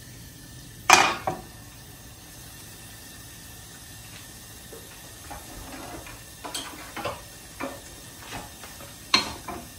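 Large non-stick frying pan set down on the gas range's grate with a sharp clank about a second in, then a scatter of lighter knocks and clatters of kitchenware, with a stronger one near the end.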